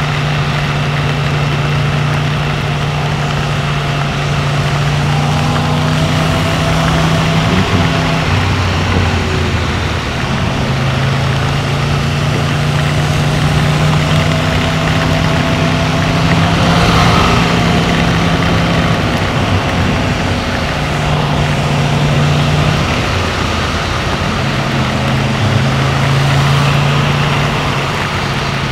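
Yamaha MT-10's crossplane inline-four, with an Akrapovic exhaust, running at a steady cruising note that shifts in pitch a few times as the throttle changes. Under it is a constant rush of wind and tyre noise on a wet road.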